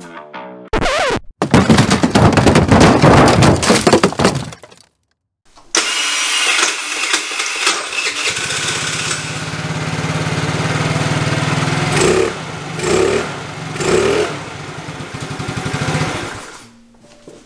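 Opens with loud distorted rock music that cuts off. Then a 50cc GY6 scooter engine on its stock exhaust is started and settles into a steady idle, with three short throttle blips about two-thirds of the way through.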